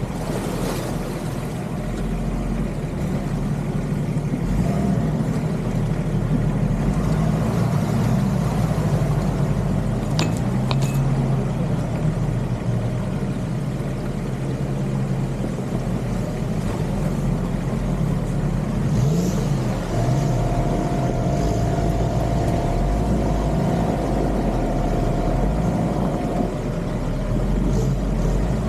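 Off-road Nissan Patrol Y61's engine running at low revs, its pitch rising and falling, with a couple of short clicks about ten seconds in.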